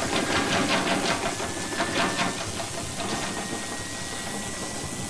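A machine ticking rapidly, about five ticks a second, over a steady hiss. The ticking stops about two seconds in, and the hiss carries on with a faint high steady tone.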